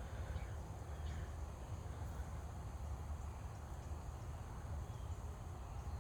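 Outdoor ambience: a steady low rumble with a few faint, short, high chirps scattered through it.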